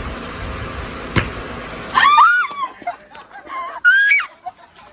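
High-pitched screams, two of them, about two seconds in and again about four seconds in, over steady background noise with a single sharp knock about a second in.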